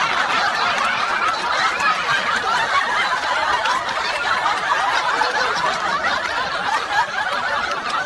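A group of people laughing together, many voices overlapping in a steady, sustained burst of laughter.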